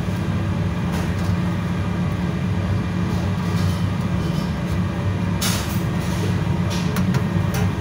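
Shredded cabbage tipped from a stainless steel bowl into a large stainless steel basin: a rustling pour with a few light metal clinks, loudest a little past halfway. A steady low mechanical hum is there the whole time.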